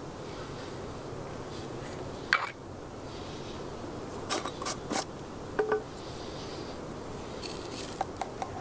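Scattered scrapes and light metal clinks as ground coffee is spooned into a moka pot's filter basket, one clink a little past halfway ringing briefly.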